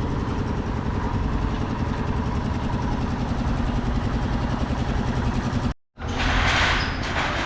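A large engine idling steadily with a low hum. After an abrupt cut about six seconds in, a louder rushing noise follows.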